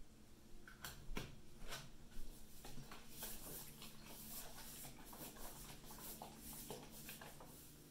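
A few light knocks in the first two seconds as plastic syringes are set down, then water sloshing in a plastic gallon jug shaken over and over for several seconds to mix in a dose of liquid fertiliser concentrate.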